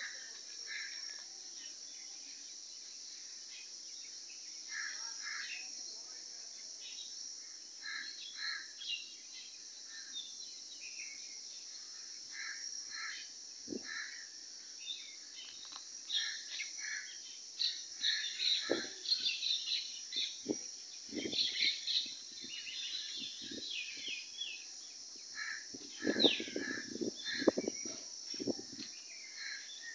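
Birds chirping and calling in short scattered notes, busier in the second half, over a steady high insect drone. A few brief knocks come through, the loudest in a quick cluster near the end.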